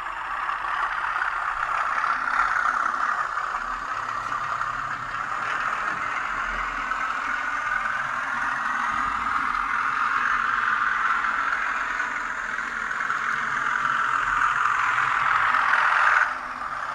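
Hornby TTS sound decoder in a Colas Class 37 model locomotive playing recorded English Electric diesel engine sound through the model's small speaker as it runs. The sound swells and fades as the model moves round the track, is loudest as it passes close by near the end, then drops suddenly.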